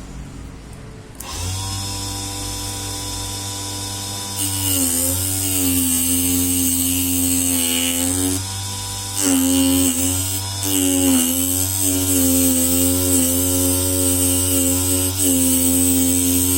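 Small electric motor of a homemade mini lathe starting up and running with a steady whine. It gets louder a few seconds in, and its pitch sags and recovers several times, with one brief drop in level in the middle.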